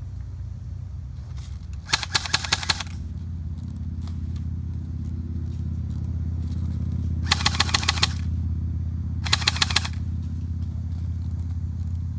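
Airsoft gun firing three short full-auto bursts of rapid, evenly spaced shots: one about two seconds in, and two more close together about seven and nine seconds in. A steady low rumble runs underneath.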